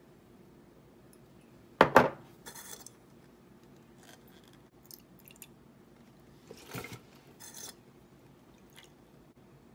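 Kitchen handling sounds of a soy sauce bottle and a plastic measuring cup on a stainless-steel counter: a sharp knock about two seconds in, soft clinks and a brief pour of soy sauce into a ceramic bowl, and another knock near seven seconds.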